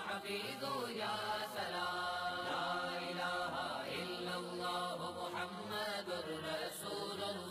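Background music of chant-like singing: a voice holding long notes that slide up and down, without pause.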